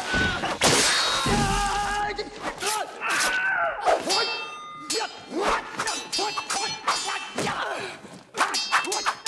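Sword-fight sound effects from a film soundtrack: katana blades clashing again and again, several strikes ringing on afterwards. Between the clashes come short shouts and grunts from the fighters and thuds of blows.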